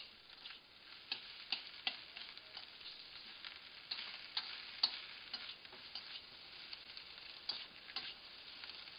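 Chicken fried rice sizzling in a hot wok while it is stir-fried with a metal spatula. The steady sizzle is broken by many irregular sharp clicks and scrapes of the spatula against the wok.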